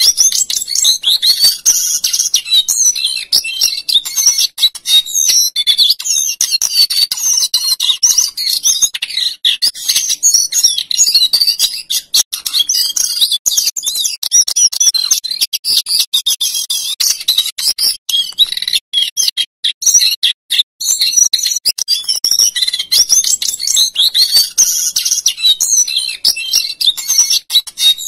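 Male jongkangan coklat (lesser shortwing) singing a long, continuous run of rapid, high-pitched rolling and fluting notes, with a short break about two-thirds of the way through.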